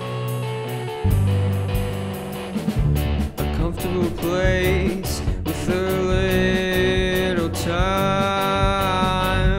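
Guitar rock song played by a band: electric guitars and bass over a steady beat, with a lead vocal coming in about four seconds in.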